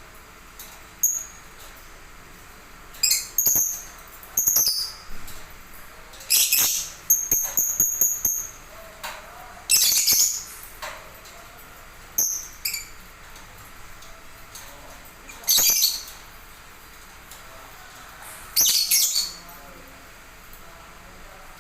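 Caged songbird chirping and calling in short, high bursts every few seconds, with one longer whistled note partway through and a few sharp clicks in between.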